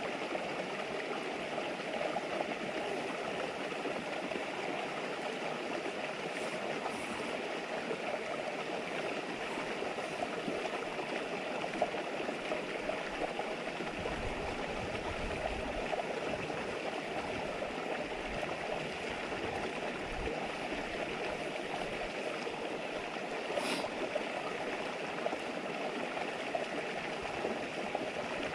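River babbling steadily in a continuous rushing murmur, with a brief low rumble about halfway through and a single sharp crack near the end.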